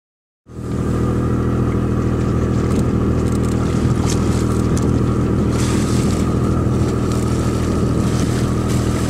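Whale-watching boat's engine running at a steady low drone, starting abruptly about half a second in, with brief hissing splashes of water and wind over it.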